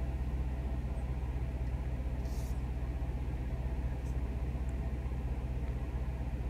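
Steady low hum of a Range Rover Sport SVR's supercharged V8 idling, heard from inside the cabin.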